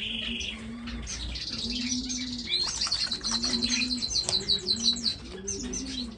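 A room full of captive finches chirping and twittering, with quick high calls and buzzy trills overlapping. A low, soft cooing repeats about every second or so underneath.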